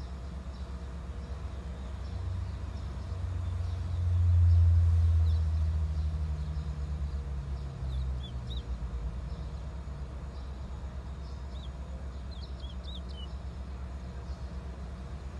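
Short, faint high chirps from a caged towa-towa (chestnut-bellied seed finch), a handful scattered through the second half, over a low vehicle rumble that swells about four seconds in and fades by about nine seconds.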